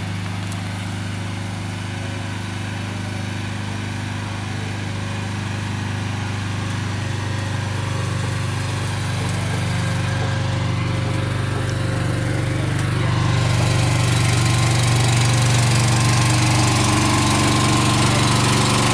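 Diesel engine of a parked semi tractor idling steadily, growing louder about two-thirds of the way through.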